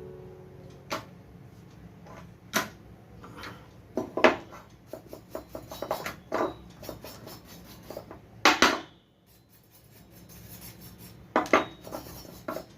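Irregular sharp clicks, knocks and clinks of hard computer parts being handled, with the loudest strikes about four seconds and eight and a half seconds in.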